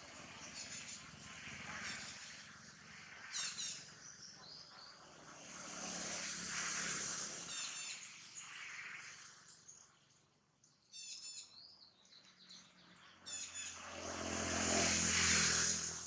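Birds chirping in short high clusters every few seconds over outdoor ambience. A broad rushing noise swells up and fades twice, loudest near the end.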